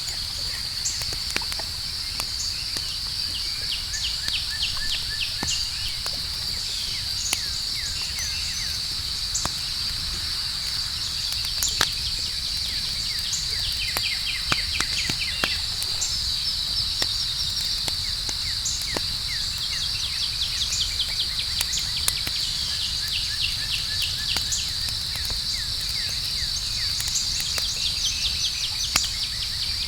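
Outdoor campfire crackling, with scattered sharp pops at irregular intervals, over a steady high trill of crickets and a low, even rumble.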